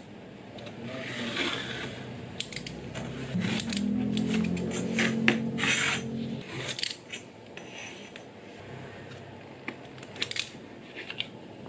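Utility knife blade scraping through leather along a steel ruler on a cutting mat, then a run of sharp metallic clicks and clatter as the steel ruler and knife are handled and set down. A low hum sits under the clicks for a few seconds in the middle, and a few more clicks come near the end.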